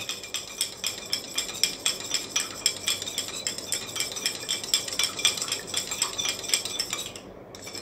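Metal spoon stirring sugar into water in a steel tumbler, clinking rapidly against the inside of the tumbler as the sugar dissolves. The clinking eases off near the end.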